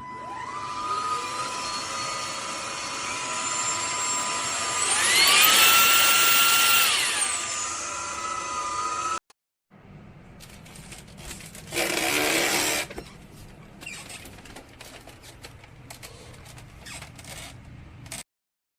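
Cordless vacuum cleaner's 500 W brushless motor running with a steady whine, which steps up in pitch about five seconds in and drops back about two seconds later. After a break it is quieter, with clicks and a brief loud burst of rushing noise.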